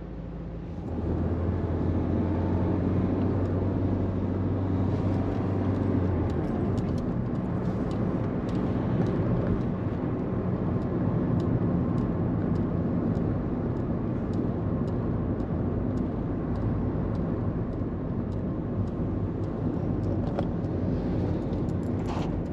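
Car interior: engine and road noise swell about a second in as the car moves off, with a low steady engine hum for the first few seconds, then even engine and tyre noise while driving along.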